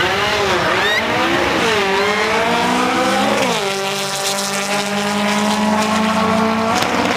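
Air-cooled Volkswagen drag car engine at high revs, its pitch rising and falling in swings, then dropping about three and a half seconds in and holding a steady high note until it drops again near the end.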